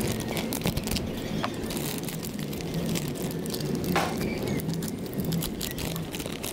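Thin clear plastic packaging crinkling and tearing as hands pull open the bag around a toy gun, with many small sharp crackles and a louder crackle about four seconds in, over a low steady rumble.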